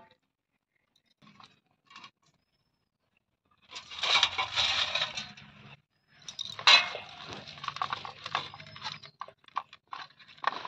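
Steel plate and steel colander scraping and clinking on a concrete floor as marinated fish pieces are moved from the colander onto the plate. There are two stretches of rattling scrapes, from about four seconds in and again from about six seconds, then a few light clinks near the end.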